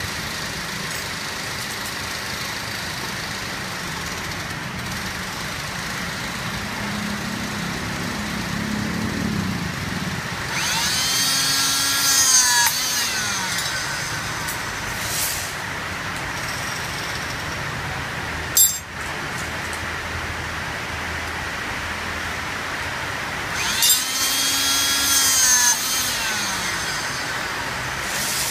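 D25 handheld electric-hydraulic rebar cutter at work. Its motor runs steadily, and twice it rises in level under load with its pitch sagging downward as the blade presses through steel bar. A single sharp snap comes between the two cuts.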